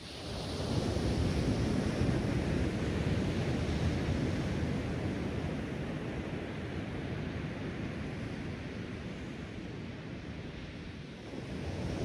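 Ocean surf breaking and washing up a sandy beach. The wash swells about half a second in, slowly eases off, and a new wave builds near the end, with some wind rumble on the microphone.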